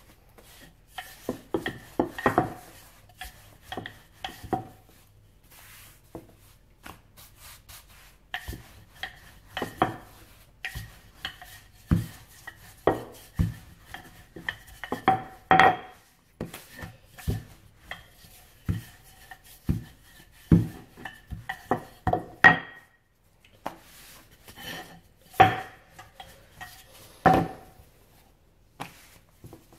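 Wooden rolling pin working a ball of croissant dough on a floured worktop: irregular knocks and clacks as the pin is pushed and set down, some with a short ringing tone, between quieter rubbing of hands and dough on the surface.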